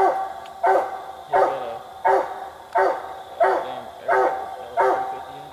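Treeing Walker coonhound barking steadily at a tree, one sharp chop bark about every 0.7 seconds, eight in a row: the tree bark of a hound with a raccoon treed.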